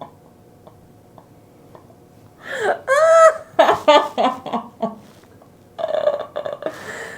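A young woman's voice crying out in high-pitched squeals and laughing cries for about two and a half seconds from about two and a half seconds in, then a shorter cry near the end.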